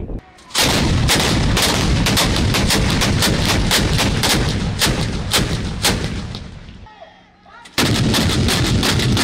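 Towed anti-aircraft guns firing in rapid volleys, about four shots a second. The firing fades away about six seconds in, then starts again abruptly with loud shots near the end.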